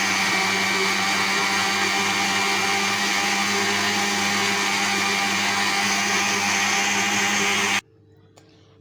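Countertop blender running steadily at full speed, blending chopped honeydew melon with pineapple juice into a smoothie-like drink, then switched off and stopping abruptly near the end.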